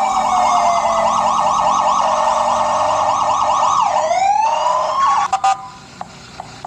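Electronic police-style siren with a fast warble, swooping down and back up about four seconds in, then stopping about a second later.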